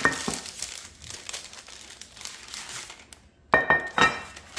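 Parchment paper crinkling and rustling as it is pressed and creased around a loaf pan, then lifted off. Two sharp knocks with a short ring sound about three and a half and four seconds in, as the pan is set down on the stone counter.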